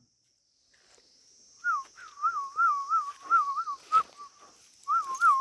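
A warbling whistle: one clear tone that wavers up and down about three times a second, in two runs with a short break about four seconds in, over a steady high hiss.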